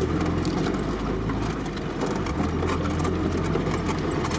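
Off-road vehicle's engine running steadily at low speed, heard from inside the cab, with scattered knocks and rattles from the vehicle lurching over a muddy track.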